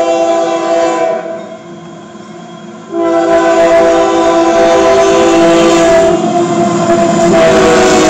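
Union Pacific GE AC4400CW diesel locomotive's multi-note air horn. One blast ends about a second in, and after a short pause a second long blast sounds. The rumble of the approaching locomotive and loaded coal train grows beneath it.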